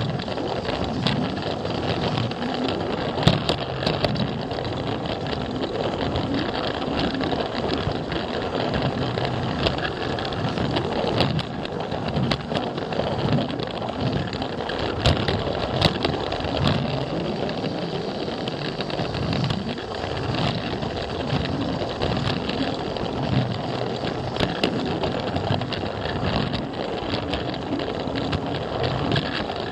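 Plarail battery-powered toy train running on blue plastic track, heard close up from the camera car it pulls: a steady motor whir and wheel rattle, broken by frequent sharp clicks as the wheels cross the track joints.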